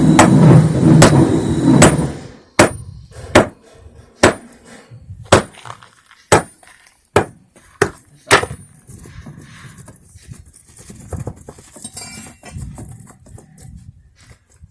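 Hammer blows breaking sawn concrete: about eight sharp, separate strikes roughly a second apart. They follow two seconds of loud, steady noise with a low hum and strikes in it, and lighter knocks and clinks come near the end.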